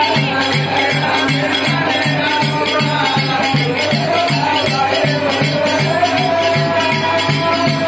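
Folk festival music: a drum beating steadily about three times a second with jingling rattles or bells over it, and a wavering melody on top.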